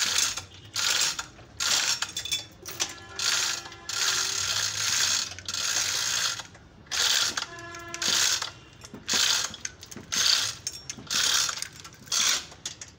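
Hand chain hoist lowering a hung engine: chain rattling through the block and the pawl ratcheting in repeated pulls, about one to two a second, some pulls giving a quick run of clicks.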